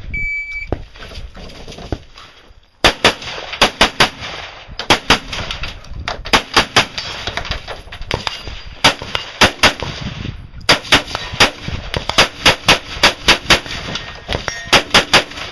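A shot timer's start beep, then an AR-15 rifle firing fast strings of shots, several quick shots at a time with short pauses between strings.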